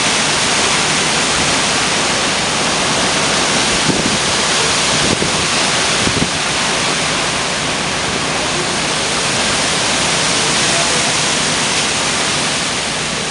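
Hurricane wind and heavy rain: a steady, loud rushing hiss with no break.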